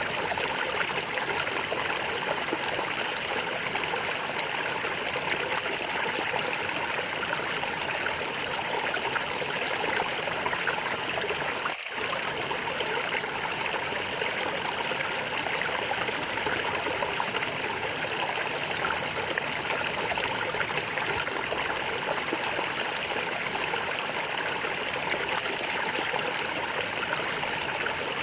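Water flowing and gurgling steadily, with a brief dip in level about twelve seconds in.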